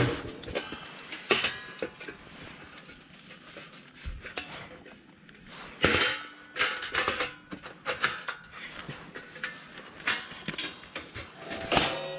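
Irregular metal clanks and rattles of sheet-metal panels knocking together as a folding wood stove is taken apart, a few strikes ringing briefly. The loudest clank comes about halfway through.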